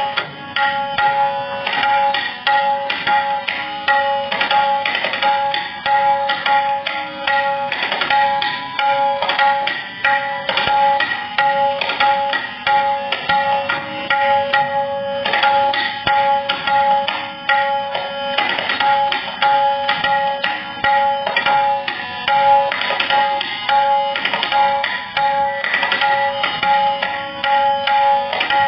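Tabla played solo: a fast, dense run of strokes on the tuned right-hand drum (dayan) and the bass drum (bayan), with a steady ringing pitch held beneath the strokes.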